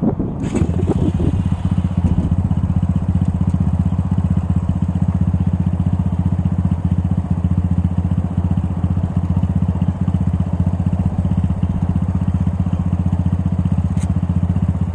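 Venom X22R motorcycle engine running steadily at an even pitch.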